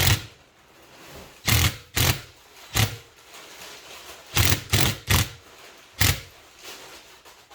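Packaging being handled and torn open: about eight short, sharp rustling bursts, some in quick pairs, with quieter handling noise between them.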